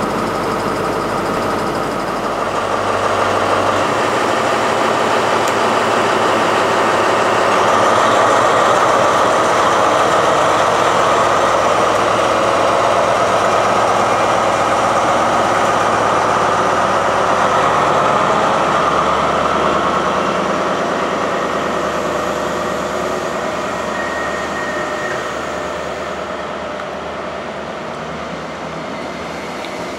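A train running through the station, its rolling noise building over the first several seconds, holding, then slowly fading over the last ten seconds.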